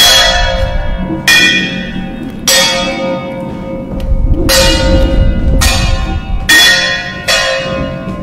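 Bell-like struck metallic tones, about seven in eight seconds at an uneven pace, each starting sharply and ringing down, over a low rumble. They form part of a live-mixed, electronically manipulated sound-art piece.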